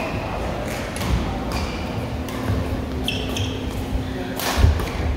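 Badminton racket strikes on a shuttlecock during a doubles rally: a few sharp hits, the loudest about four and a half seconds in, with two brief shoe squeaks on the court floor shortly before it.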